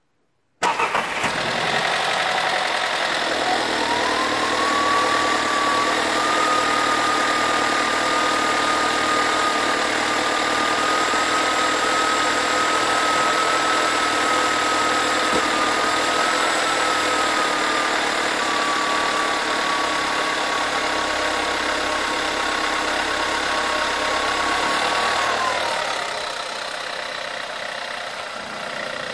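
Volkswagen Scirocco 1.4 TSI petrol engine starting from cold and running at a steady fast idle. A thin high tone comes in a few seconds after the start and stops near the end, where the engine also gets quieter. The owner questions whether the noise is normal or a sign of a slack timing chain.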